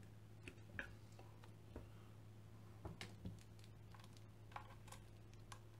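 Faint, scattered light clicks and taps as a black acrylic base plate is handled and turned over on a tabletop, a few of them close together about three seconds in, over a low steady hum.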